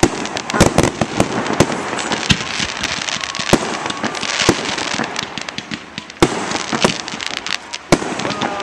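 Aerial fireworks display: many shell bursts going off in quick, irregular succession, sharp bangs over a continuous crackle of sparks.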